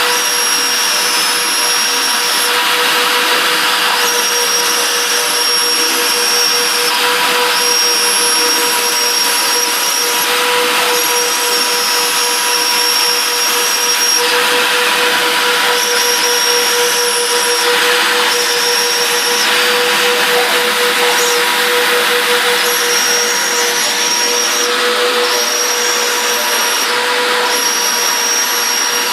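Twin CNC router spindles running at 30,000 rpm with a 1.5 mm mill, cutting through two stacked layers of 3 mm poplar plywood. A steady whine sits over a dense cutting hiss, and a higher whine switches on and off every couple of seconds.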